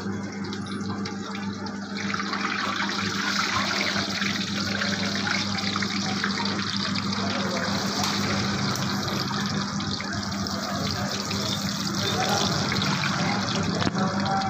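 Batter-coated potato vadas deep-frying in a wok of hot oil: a steady sizzle that grows louder about two seconds in.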